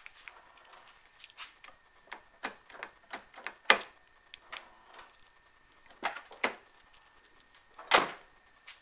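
Ford Mondeo's central-locking door lock actuators clunking as the remote is worked, with the outer door handle being tried; a string of short sharp clicks and clunks, the loudest about four seconds in and near the end.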